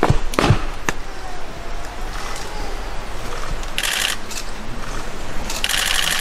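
Camera shutters firing in two rapid bursts of clicks, one about four seconds in and one near the end, after a single sharp thump about half a second in.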